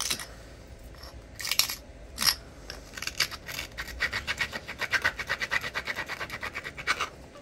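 A flint edge being abraded: a couple of sharp clicks, then fast, even back-and-forth scratching at about nine strokes a second over the last four seconds. This is grinding a striking platform before a punch removal.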